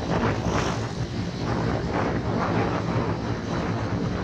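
Motorcycle riding at road speed: the engine runs steadily under wind rush on the microphone.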